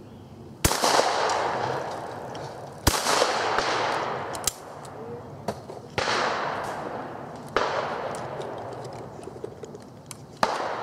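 Five shotgun shots, each a sharp crack that trails off in a long echo. The first two come about two seconds apart, and three more follow spread through the rest, with a couple of fainter clicks between them midway.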